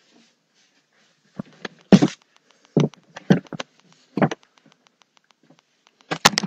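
Irregular knocks and thumps of things being handled and moved about, with many faint ticks between and a cluster of louder knocks near the end.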